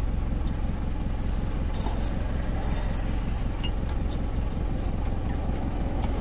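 Truck engine idling steadily, heard from inside the cab. A few faint short chewing noises sit on top.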